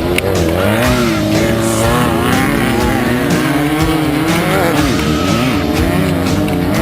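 Off-road race car engine revving up and down over and over, mixed with background rock music.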